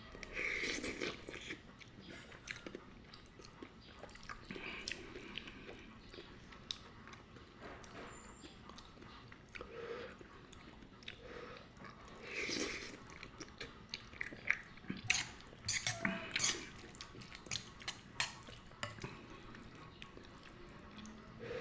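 Close-up chewing and eating of pancit noodles, with wet mouth sounds and scattered sharp clicks. There are louder bursts about a second in and again about twelve seconds in, and a quick run of clicks a few seconds later.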